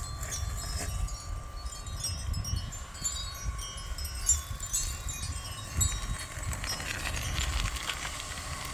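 Wind chimes tinkling in scattered light strikes, over a faint steady hum and a low rumble of wind on the microphone.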